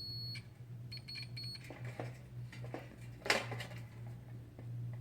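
Digital multimeter's continuity beeper giving two short high-pitched beeps, then light clicks and taps as the test probes and the heating element are handled. A low steady hum runs underneath.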